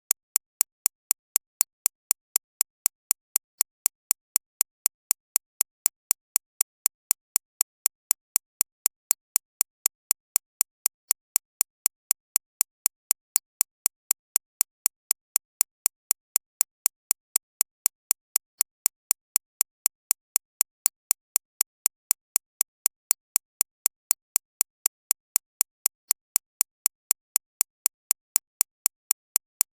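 Digitally synthesized recreation of a shockwave therapy machine's impacts: sharp, evenly spaced clicks, about four a second, brightest in the high treble.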